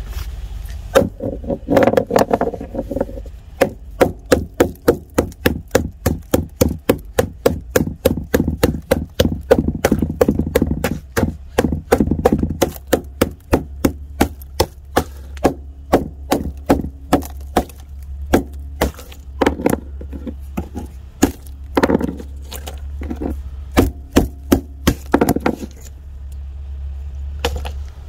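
A sheet of ice frozen in an orange tub being struck and broken up: a fast run of sharp knocks and cracks, about three a second, thinning to scattered strikes after the middle and stopping near the end.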